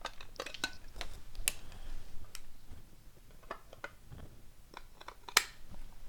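A trading card being fitted into a plastic magnetic one-touch card holder: a series of light plastic clicks and handling noises, with one sharper click near the end.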